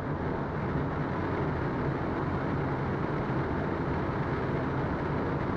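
Steady flight-deck noise of a Boeing 777 on final approach: an even rush with a low hum beneath it.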